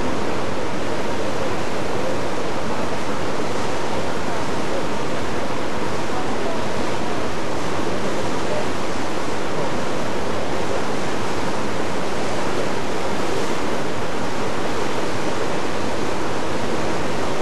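Steady, loud rushing noise of wind and water, unbroken and with no distinct events.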